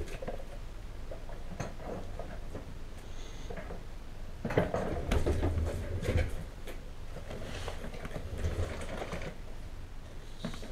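Cardboard packaging being handled on a tabletop: scattered rustles, scrapes and light knocks in irregular bunches, busiest about halfway through and again in the last few seconds.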